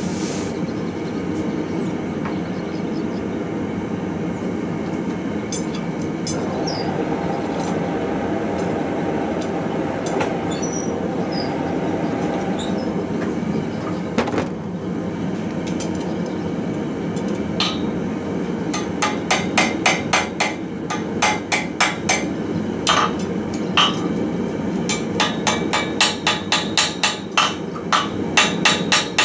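A steady low rumble, then from about two-thirds of the way in, a hammer striking metal in quick runs of blows, about four a second with short pauses, typical of a farrier shaping a horseshoe on the anvil.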